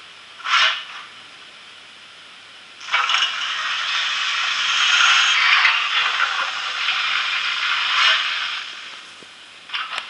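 HO-scale DRG Class 44 steam locomotive model's DCC sound decoder playing steam hiss through its small onboard speaker: a short burst about half a second in, then a long hiss from about three seconds in that fades out near the end.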